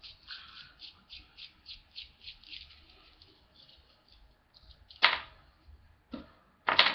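Metal parts of a CoilMaster V3 coil-building tool being handled: a quick run of faint, even ticks as the top cap is unscrewed from the threaded barrel, then a few sharp clacks of metal, the loudest about five seconds in and near the end.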